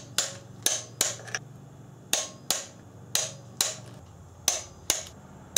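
Socket wrench ratchet clicking in a steady series of sharp metallic clicks, about two a second, as the intake manifold bolts on a Subaru 2.5 L boxer engine are tightened down.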